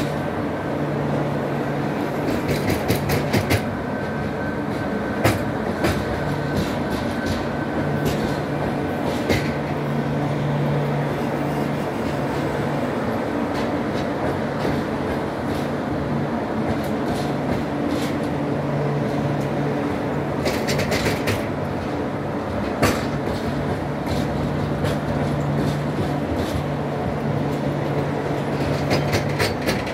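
Double-deck passenger coaches rolling past on the rails: a steady rumble with a low hum that comes and goes, and wheels clicking over rail joints in irregular clusters.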